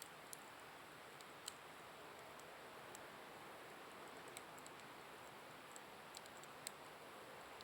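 Wood bonfire crackling faintly: scattered, irregular sharp pops and snaps over a steady hiss.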